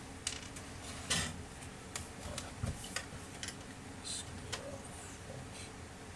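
Irregular light clicks and metallic clinks, the loudest about a second in: metal parts of a Samsung ML-1665 laser printer and hand tools being handled during disassembly.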